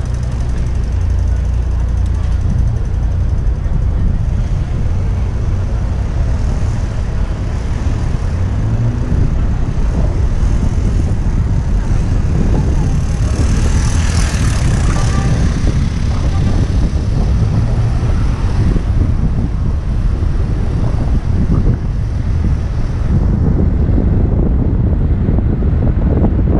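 Wind buffeting the microphone of a camera moving at riding speed along a city street: a steady low rumble with road noise, swelling briefly into a louder hiss about halfway through.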